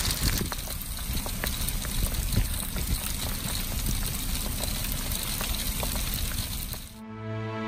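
Hail falling on grass: a steady hiss full of small sharp ticks from hailstones landing, over a low rumble. Music comes in near the end.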